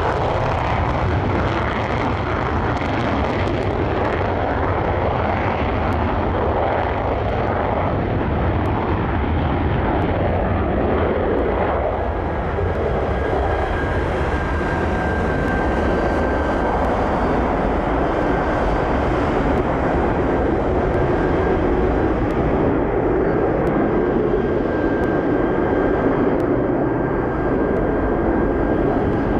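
Panavia Tornado's twin Rolls-Royce RB199 turbofans at full afterburner, a loud, steady jet noise as it takes off and climbs away. A faint high steady whine joins about halfway through.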